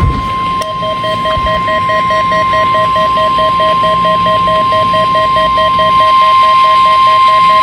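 NOAA Weather Radio warning alarm tone, one long steady tone sounded for the weekly test of the alarm. From about half a second in, a second, lower tone beeps about four times a second beneath it.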